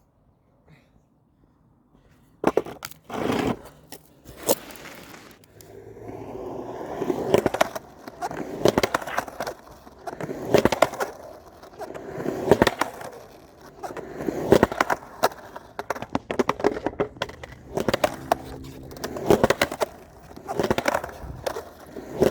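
Skateboard: a few sharp knocks of the board, then its wheels rolling over pavement with clicks and clacks, swelling about every two seconds as the rider pumps and carves.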